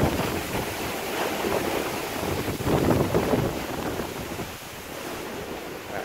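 Waves washing against a fishing boat's hull in a rough sea, with wind buffeting the microphone, in irregular surges that ease off after about four seconds.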